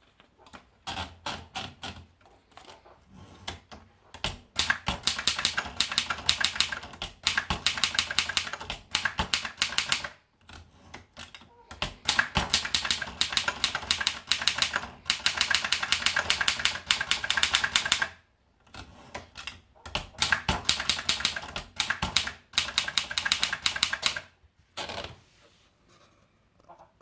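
Gossen Tippa portable typewriter being typed on: fast runs of key strikes in several long bursts, separated by short pauses, with a few lighter strokes at the start and near the end.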